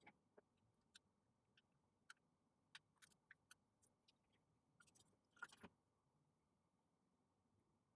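Faint, scattered light clicks and taps of small repair tools working on a tablet, with a short cluster of them about five and a half seconds in; otherwise near silence.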